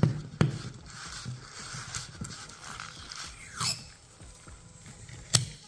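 Rain water being wiped off a car windshield's glass: rubbing on the glass, a few sharp clicks, and one short falling squeak about three and a half seconds in.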